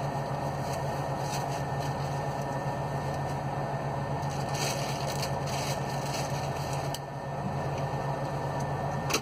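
A steady low mechanical hum, with faint scrapes and a sharp click near the end.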